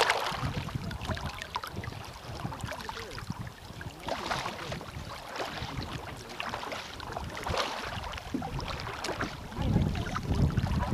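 Kayak paddle strokes: a double-bladed paddle dipping and splashing in river water every second or two, with water washing along the kayak's hull. Low wind rumble on the microphone near the end.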